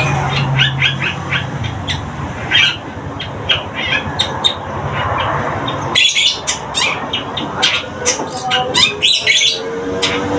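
Long-tailed shrike (cendet), a local bird just beginning to sing, giving a run of short, harsh chirps and squawks. About six seconds in it breaks into a louder, shriller burst of rapid notes for three or four seconds.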